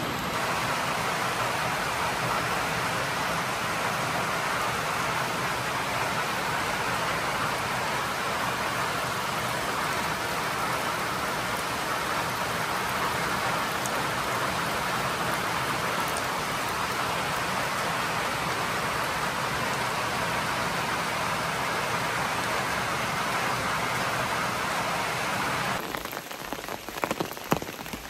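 Heavy rain pouring steadily on the forest and shelter. About two seconds before the end it gives way to a closer, uneven patter of drops.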